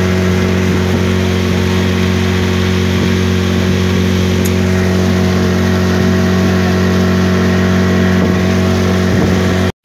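Outboard motor of a small aluminium boat running at a steady cruising speed: a constant engine drone over the rush of water spray and wind. It cuts off abruptly near the end.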